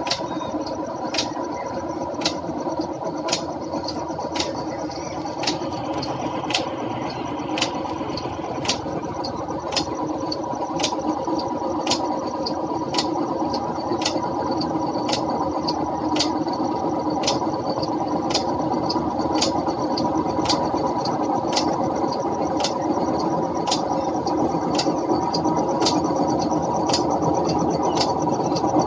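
House sparrow chirping over and over, about two short, sharp chirps a second, over a steady machine hum.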